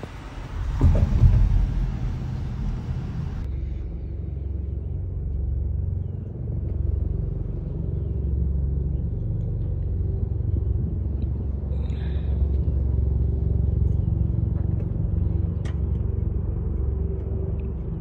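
Steady low rumble of a car driving, heard from inside the cabin: engine and tyre noise on the road. A higher hiss drops away about three and a half seconds in, leaving the rumble.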